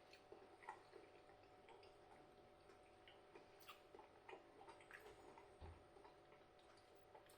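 Near silence with faint, irregular soft clicks and ticks of a person chewing a mouthful of food.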